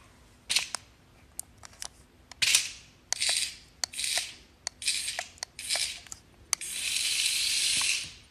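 A cat hissing at a toy snake: a run of short, sharp hisses with spitting clicks, then one long hiss of about a second and a half near the end.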